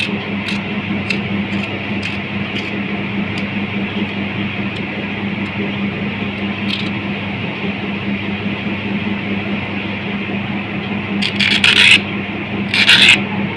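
Two short, harsh scrapes on a cucumber near the end, over a steady low hum with a few faint ticks.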